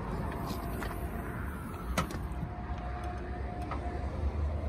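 Suzuki Swift hatchback tailgate being unlatched and lifted. There is a sharp latch click about two seconds in and a few lighter clicks, over a low background rumble.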